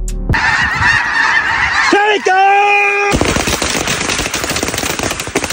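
Waterfowl honking, with one long, steady honk about two seconds in, followed by a dense crackling, rustling noise.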